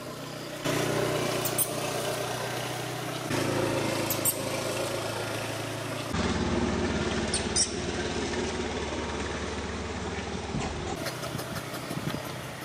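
A motor running steadily with a low hum, its sound shifting abruptly a few times, with a few brief high squeaks over it.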